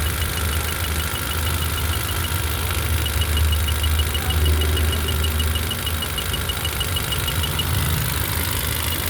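Honda City engine idling unevenly with a misfire, a low, irregular throb.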